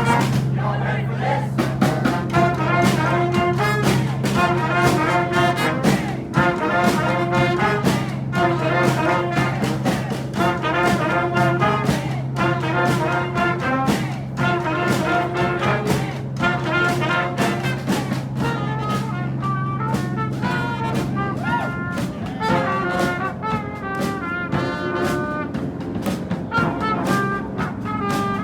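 Street brass band with drums playing a repeating up-tempo riff, with a horn soloing over it. A steady low hum runs underneath until about three quarters of the way through.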